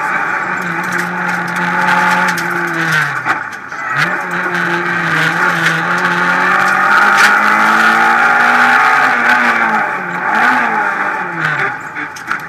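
Renault Clio Ragnotti rally car's four-cylinder engine heard from inside the cabin, running hard at high revs. The engine note dips and climbs again just before the middle, and falls and wavers near the end as the car slows for a corner. Sharp clicks and rattles sound over it.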